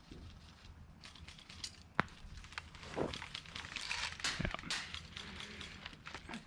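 Footsteps crunching and crackling through dry brush and leaves, irregular, with one sharp click about two seconds in.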